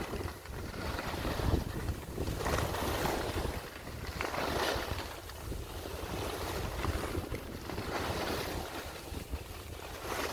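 Wind rushing over the microphone while descending a ski run, with a swelling hiss of snow under the board or skis every second or two as turns are carved through fresh powder.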